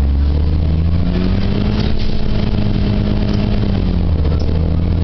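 Cummins L10G natural-gas engine of an Orion VI city bus, heard from inside the cabin, pulling under acceleration: its pitch climbs over the first two seconds, holds, then drops back about four seconds in, over a steady low drone.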